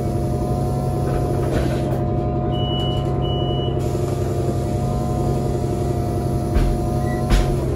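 Cabin sound of a Solaris Urbino 18 CNG articulated bus, its Cummins ISL G gas engine running steadily at one speed. Two short high electronic beeps sound about two and a half seconds in, and two low knocks come near the end.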